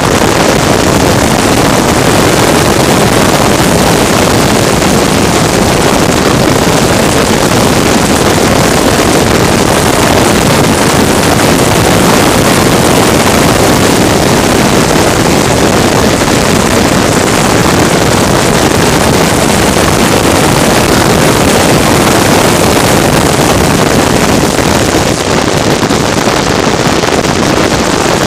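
Racing vehicle running at speed: a loud, steady wash of engine and wind noise, with wind buffeting the microphone.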